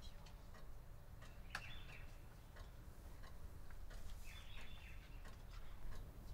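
Faint bird chirps in short clusters, once about a second and a half in and again around four and a half seconds, over a low steady hum and a few light clicks.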